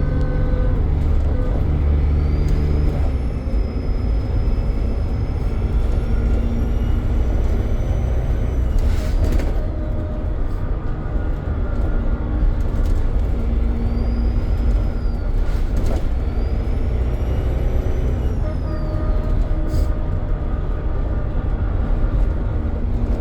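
Dennis Trident double-decker bus engine running under way, its turbocharger whistle rising and falling several times as the bus pulls and eases off. A brief burst of noise comes about nine seconds in.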